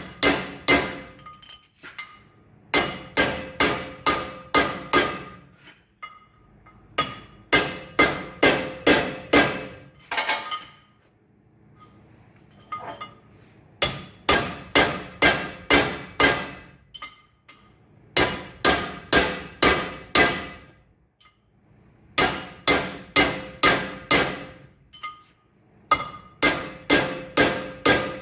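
Hammer striking a chisel to drive a damaged steel ring gear off a tractor flywheel: ringing metallic blows in runs of six to eight, about three a second, with short pauses between runs.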